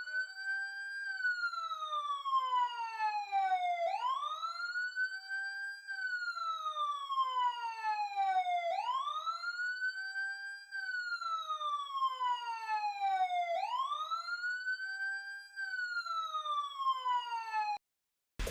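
Electronic siren of a homemade fire detector alarm wailing: each cycle rises quickly in pitch, holds briefly, then falls slowly, repeating about every five seconds. It cuts off suddenly near the end.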